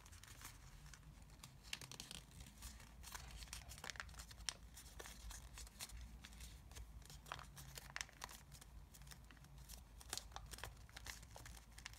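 Faint crinkling and rustling of thin origami paper as fingers push a folded flap into its pocket, with scattered small crackles throughout.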